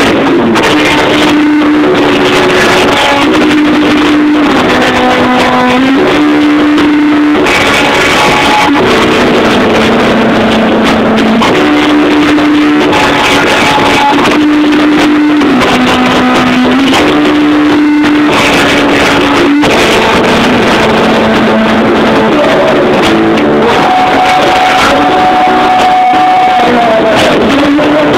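Punk rock band playing live, with electric guitar to the fore: a riff of long held notes that change every second or two over a dense, continuous wash of band sound.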